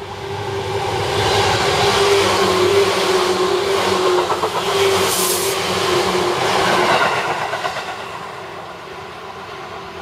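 Seibu 10000 series Red Arrow limited express electric train passing close at speed: wheels rumbling on the rails under a steady motor whine. It builds over the first couple of seconds, stays loud, then eases off after about seven seconds as the train moves away.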